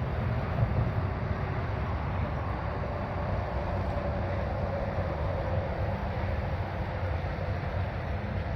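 Steady low rumble of a vehicle driving, with no bangs or crackles.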